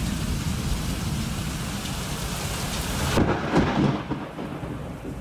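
Heavy rain pouring with thunder rumbling in a severe thunderstorm. About three seconds in the hiss of the rain drops sharply while the low rumble goes on.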